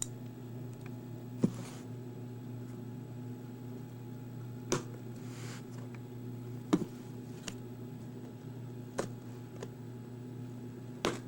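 A shipping box being worked open by hand: a handful of sharp knocks and clicks scattered irregularly, with brief scraping rustles of packaging, over a steady low hum.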